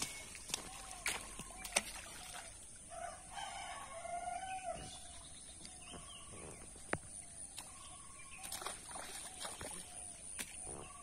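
A rooster crowing, one long call about three to five seconds in, with a few short sharp clicks around it.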